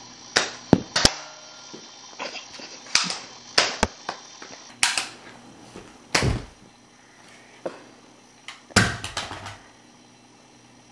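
Toy pistol firing a string of sharp clicks and pops at uneven intervals, with two heavier thumps in the middle and near the end.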